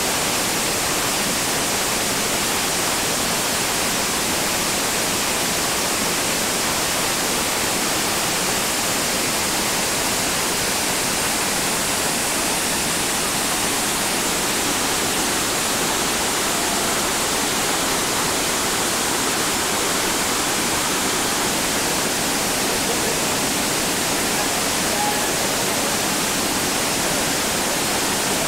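Steady rush of whitewater pouring over a bedrock waterfall drop on a mountain creek, an even noise without a break.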